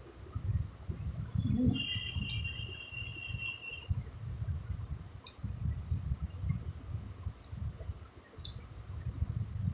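Close-miked chewing of food: irregular low, muffled thuds of the jaw and mouth working, with scattered small clicks. A high steady ringing tone sounds for about two seconds, starting near the two-second mark.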